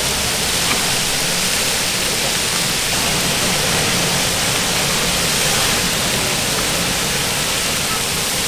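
Steady rushing noise of a high-flame gas wok burner with noodles sizzling in the wok, played backwards.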